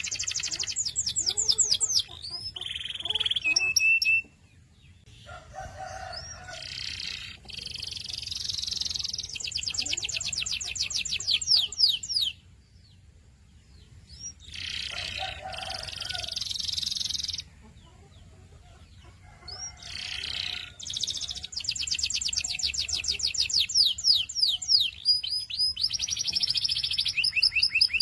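Canary singing: high, fast trilled rolls and runs of repeated notes, in phrases broken by short pauses of a second or two.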